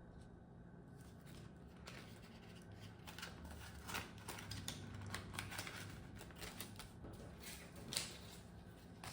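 Paper banknotes and cash envelopes being handled: soft intermittent rustling and small clicks, a little louder about four seconds in and again near the end.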